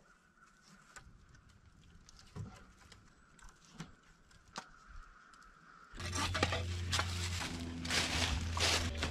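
A few faint knocks of wood on wood, then about six seconds in, loud crunching footsteps through dry fallen leaves with rumbling handling noise from the carried camera.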